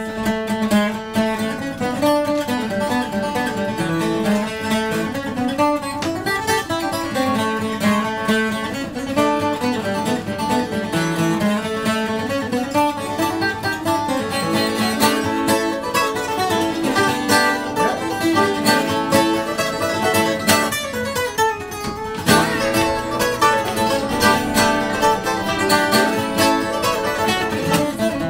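Acoustic string band playing live: plucked acoustic guitar lines over upright bass, with a quick run of notes throughout.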